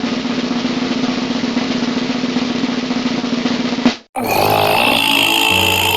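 A snare drum roll runs for about four seconds and cuts off abruptly. After a short break, music with steady held tones begins.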